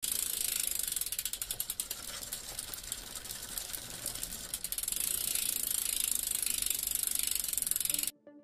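Bicycle freewheel hub clicking rapidly as the rear wheel coasts, a fast fine ticking that cuts off suddenly about eight seconds in.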